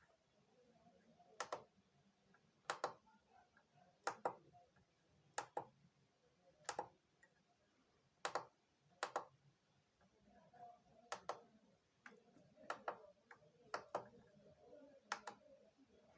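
Sharp plastic button clicks, about one every second or so and some in close pairs, as buttons are pressed on an LED TV that stays silent. The TV's own sound output is dead.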